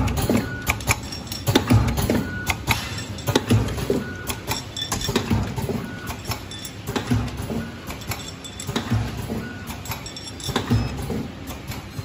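Automatic powder sachet packing machine for water-soluble film running, its mechanism clicking and knocking in an uneven rhythm of about one to two strokes a second.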